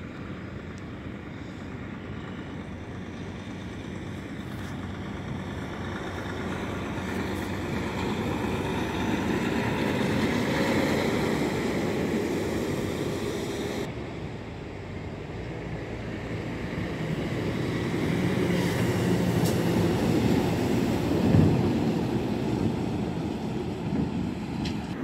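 Two heavy trucks pass in turn, the engine and tyre noise of each swelling as it comes near and then fading. First a semi-tractor pulling an empty flatbed trailer, then a dump truck, with one sharp bang during the second pass.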